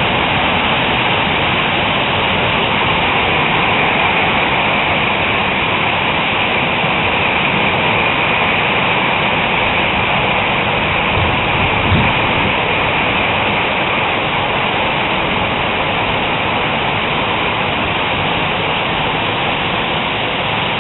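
Heavy hailstorm: hailstones and rain pelting down steadily on roofs, ground and pavement in a dense, even hiss, easing very slightly near the end. A brief low thump about twelve seconds in.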